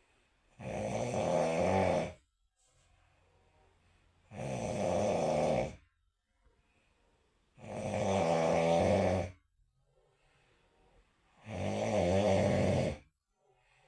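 A person snoring: four loud, pitched snores, each about a second and a half long, coming roughly every three and a half to four seconds, with quiet gaps between.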